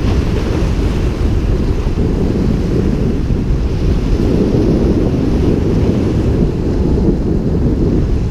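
Wind buffeting the microphone in a steady, loud low rumble, with surf washing against rock jetty stones beneath it.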